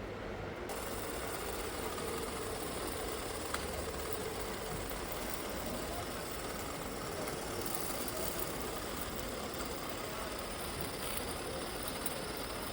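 Small electric motors and gearboxes of radio-controlled model trucks and construction machines whirring over a steady background hum.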